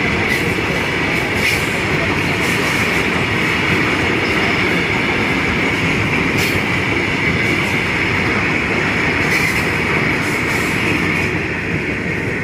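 Train of BOXN open steel freight wagons rolling past close by: a steady loud clatter and rumble of wheels on the rails, with a steady high-pitched ring and a few sharp clanks.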